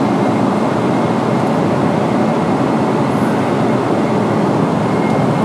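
Steady cabin noise inside a Boeing 777-300ER airliner in flight: an even, unbroken rush of air and engines.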